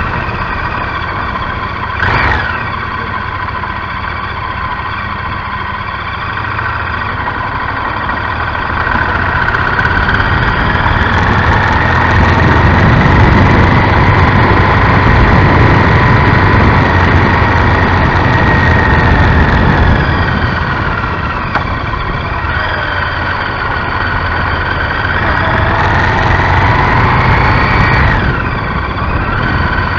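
Honda Varadero XL1000's V-twin engine running under way at town speed. The engine note climbs over a few seconds and holds, falls back about two-thirds of the way through, then rises once more and drops near the end.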